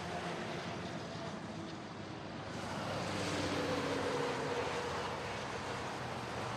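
City road traffic: cars passing on a busy street, a steady rush of engine and tyre noise that swells louder about three seconds in as a car goes by close.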